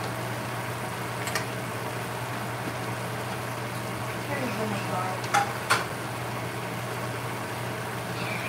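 A skillet of ground chicken, cauliflower and glass noodles sizzling and simmering in its broth, over a steady low hum. A few sharp clicks come about a second in and twice more around five and a half seconds in.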